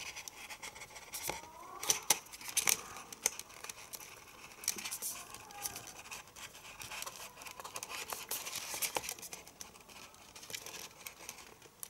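Plastic disc case and disc being handled: scattered clicks, scrapes and rustles as a disc is prised off its hub, with a few faint plastic squeaks early on.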